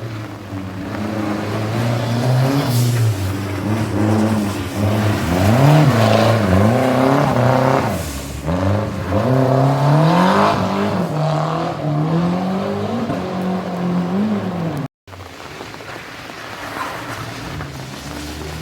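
A performance car's engine driven hard, the revs rising and falling over and over as the throttle is worked on and off, typical of a car being drifted. About fifteen seconds in the sound cuts off abruptly and a quieter engine sound follows.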